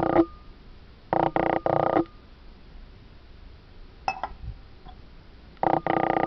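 Electronic beeping tones in loud on-off bursts, each a steady chord of pitches that starts and stops abruptly, with a long pause in the middle. A few light metallic clinks about four seconds in, as a stainless steel tumbler is handled.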